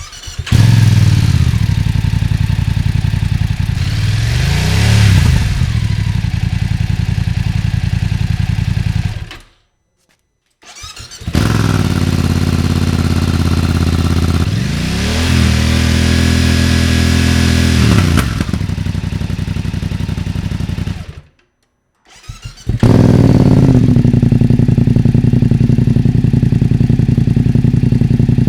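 BMW F900R parallel-twin motorcycle engine running through its exhaust in three separate takes with short silent gaps between them: idling with a brief throttle blip in the first, a rev held high for a few seconds then dropping back in the second, and a steady idle in the last.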